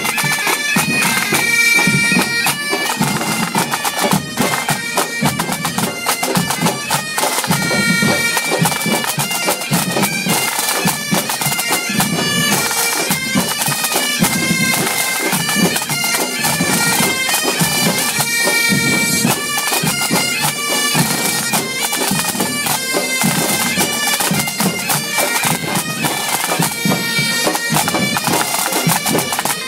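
Breton bagad playing: bagpipes hold a tune on steady, sustained notes over continuous drumming.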